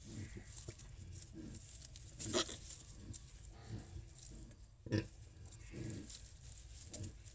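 Pigs grunting: a run of short, low grunts, with two louder, sharper sounds about two and five seconds in.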